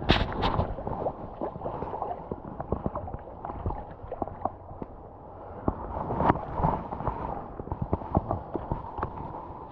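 Water splashing and gurgling in uneven surges, the loudest at the very start and again around six to seven seconds in, with many small knocks and clicks among them.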